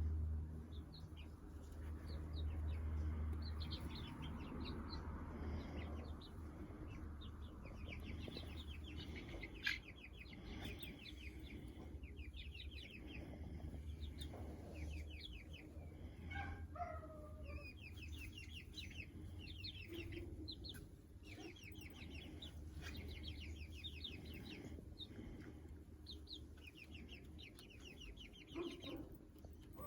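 A flock of young chickens peeping in quick runs of short high notes, with a few lower falling calls.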